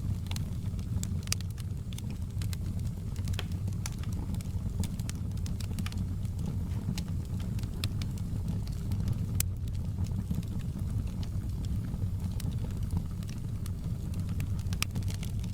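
Wood fire crackling in a fireplace: irregular sharp pops and snaps over a steady low rumble, one pop louder about nine seconds in.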